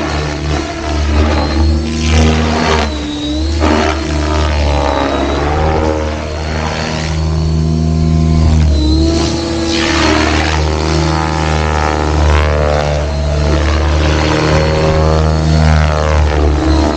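RC helicopter on switchblade rotor blades in 3D flight: a steady rotor buzz with a motor whine over it, both gliding up and down in pitch again and again as it manoeuvres.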